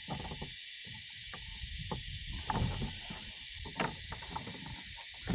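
Chorus of cicadas as a steady, even high buzz, with short irregular knocks and splashes close by.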